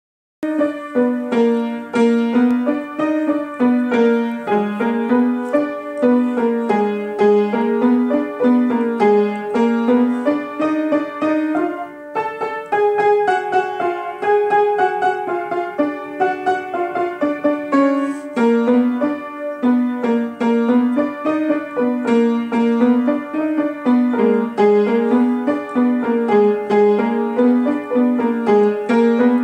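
Upright piano played solo: a melody over a repeating rocking broken-chord accompaniment in the lower notes, easing off briefly about twelve seconds in.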